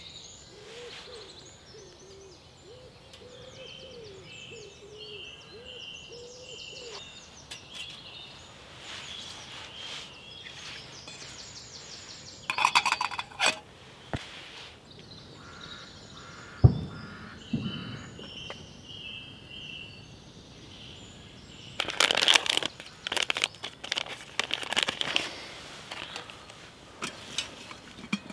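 Woodland birds singing, with metal camping pots and a lid being handled: a short run of clinks about halfway through, a single knock, and a longer spell of clinking and clatter near the end.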